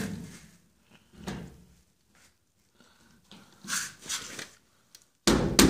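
A few separate clunks and scrapes as the fuel filler door housing is pushed into the opening in the pickup bed's side, ending in a sudden loud knock about five seconds in.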